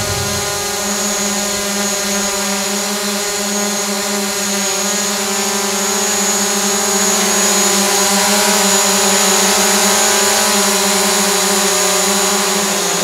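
DJI Mavic Pro quadcopter hovering on its stock propellers: a steady buzzing whine of several layered pitches from its motors and rotors. It grows a little louder about halfway through, and the pitch wavers slightly as the drone adjusts and drifts sideways.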